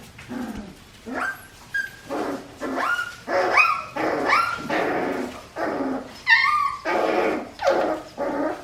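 Young Australian Shepherd puppies, about four and a half weeks old, barking and yipping in a steady run of short, high calls.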